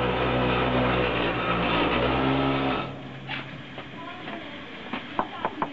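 Steady low machine hum made of several fixed tones, cutting off abruptly about three seconds in. A quieter stretch follows, with a few sharp knocks near the end.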